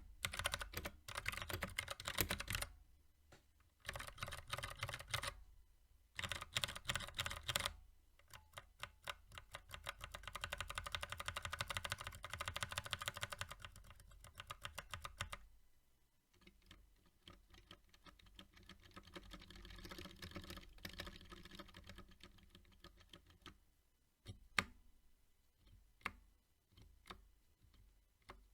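Typing on a mechanical keyboard fitted with Greetech Brown tactile switches: runs of fast keystrokes broken by short pauses, thinning to a few single key presses near the end.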